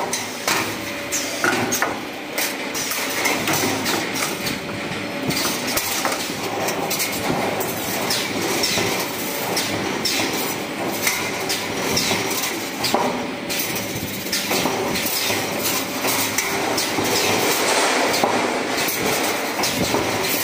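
Automatic wire bending machine running, feeding and bending 4.0 mm steel wire into a frame: frequent clacks and knocks over steady mechanical noise.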